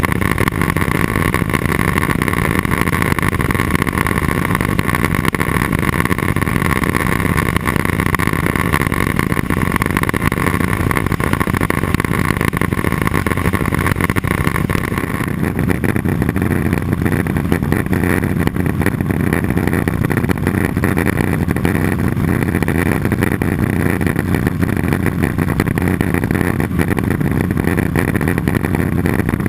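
Cessna 206 Soloy turbine conversion's turboprop engine and propeller running steadily with a loud drone. A higher whine over the drone weakens about halfway through.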